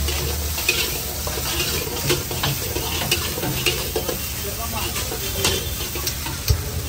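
Steel ladle scraping and clanking against a large iron wok as egg fried rice is stir-fried over high heat, irregular sharp clinks over a steady sizzle, with a harder knock near the end.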